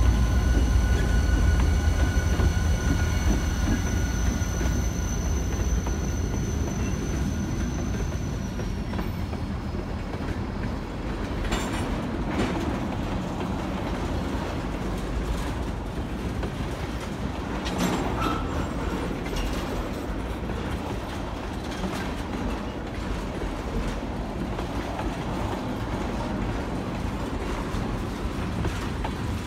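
Freight train passing: diesel locomotive engines rumble with a high whine that drops in pitch about eight seconds in, then the freight cars roll by with wheels clicking over rail joints and a few sharp clacks and squeals.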